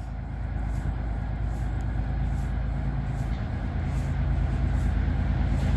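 Lead GE ES44C4 diesel-electric locomotives of an approaching freight train, a low engine drone with a steady hum that grows gradually louder as they near.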